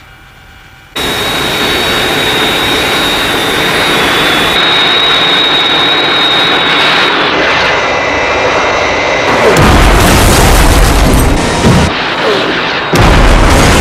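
Jet aircraft engines start loudly about a second in, a dense roar with a steady high whine. Later it gives way to a louder, deeper rumble like blasts, with another loud surge near the end, as the attacked transporter is hit.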